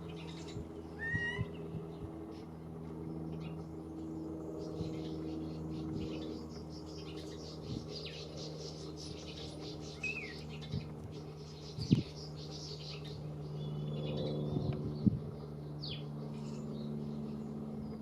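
Common starling singing: a busy run of rapid high chirps, clicks and short whistles, with a rising whistle about a second in and two louder sharp clicks in the second half. A steady low hum runs underneath.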